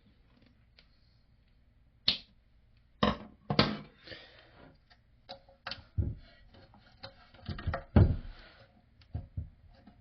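Hard plastic parts being fitted into a toilet tank by hand: a run of sharp clicks and knocks with short bits of scraping. The loudest knock comes about eight seconds in.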